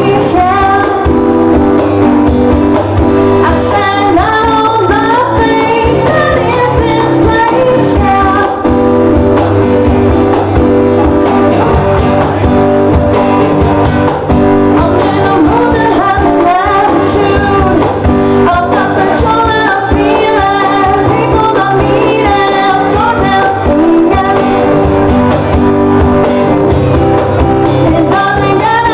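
A woman singing live into a microphone while strumming an acoustic guitar, loud and continuous.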